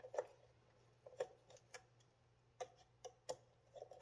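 Faint, irregular metal clicks, about eight of them, from a screwdriver working the retaining screw of a Subaru's stock MAP sensor as the sensor is being removed.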